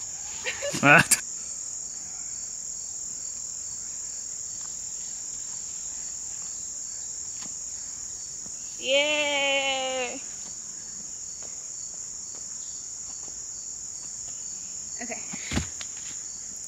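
Insect chorus: a steady, high-pitched buzzing trill, with a single thump near the end.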